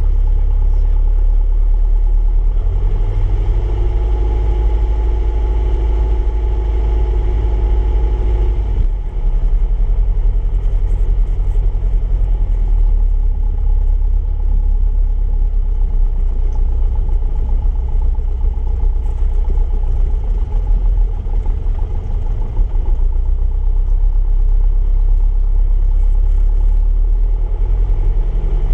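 Single-engine light aircraft's piston engine and propeller running steadily at low taxi power, heard from inside the cockpit. A stronger, steadier tone joins from about three to nine seconds in.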